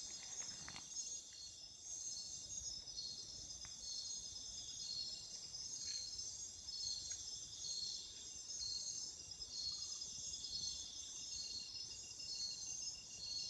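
Steady chorus of insects: a high, shrill, continuous trill with a regular pulse a little more than once a second. A few faint clicks or rustles come through underneath.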